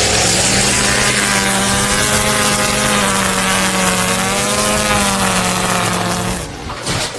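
A loud motor running steadily with a hum and a hiss, its pitch wavering slightly, cutting off about six and a half seconds in.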